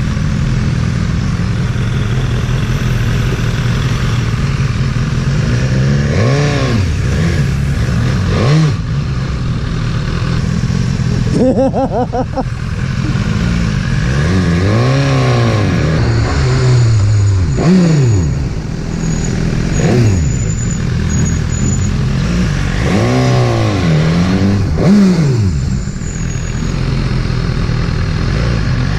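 BMW motorcycle engine revving up and down as the bike is ridden, its pitch climbing and dropping again and again through throttle and gear changes, over a steady rush of wind and road noise.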